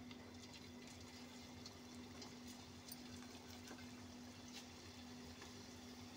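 Onion pakora batter deep-frying in hot oil in a kadai: a faint steady sizzle with scattered small crackles and pops, over a steady low hum.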